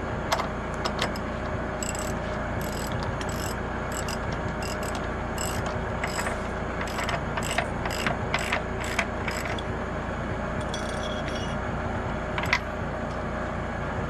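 Ratchet wrench clicking in quick strokes as a nut is run down onto an anchor bolt set in the concrete slab, over a steady mechanical hum.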